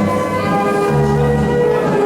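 Ballroom dance music playing, with sustained notes over a bass line that shifts about every half second.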